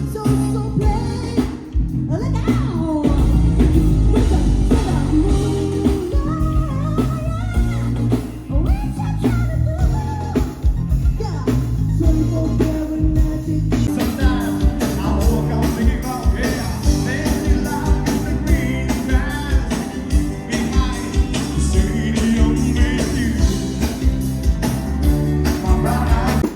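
A band playing a rock song with a singer: a sung melody over bass guitar, guitar and drums.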